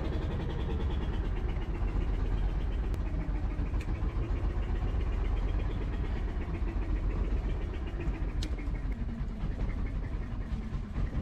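Fishing boat's engine running steadily, a continuous low rumble with a slightly wavering hum.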